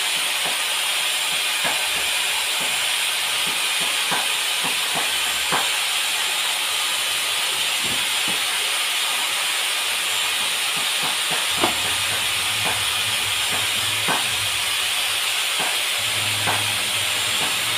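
A steady hiss, with scattered light knocks and clicks; a low hum joins about two-thirds of the way in.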